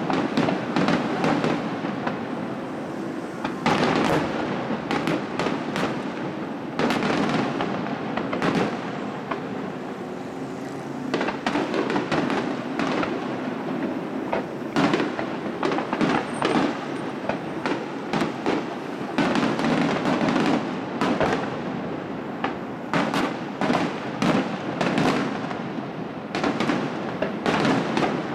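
Aerial firework shells bursting one after another: many sharp booms and cracks at irregular intervals, coming in dense clusters, each trailing off in an echo.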